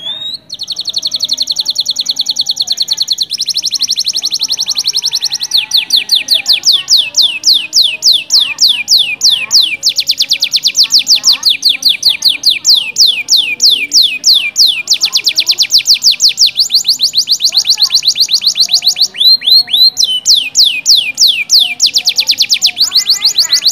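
Domestic canary singing loudly as a lure song: it starts abruptly with buzzy, rattling trills, then runs into long series of rapid, repeated down-sweeping whistled notes.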